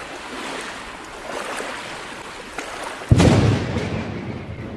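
Sound effects from a music video's intro: a steady rushing noise, then a sudden deep boom about three seconds in that slowly dies away.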